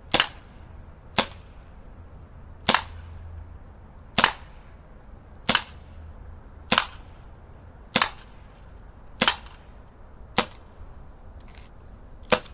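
BB pistol firing shot after shot, ten sharp pops at a steady pace of about one every second and a quarter.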